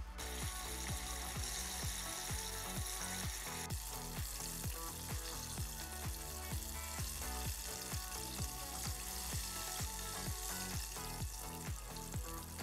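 Sesame-coated sweet potato croquettes (korokke) deep-frying in a saucepan of hot oil, a steady sizzle, under background music with a steady beat.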